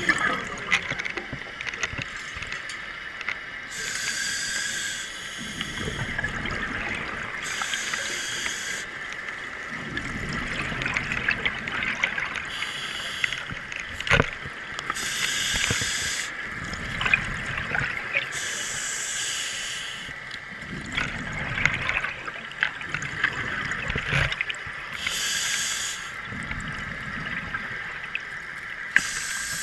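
Scuba diver breathing underwater through a regulator: a hiss alternating with a gurgling rush of exhaled bubbles, about one breath every three to four seconds. Two sharp knocks partway through.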